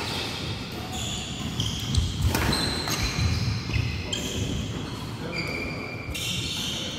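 Badminton doubles rally on wooden indoor courts: court shoes squeak repeatedly as the players move, with a few sharp racket strikes on a nylon shuttlecock, the clearest about two seconds in.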